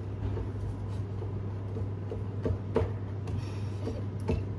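A steady low hum with a few soft clicks and taps, the sharpest about two and a half seconds in, again just after, and near the end.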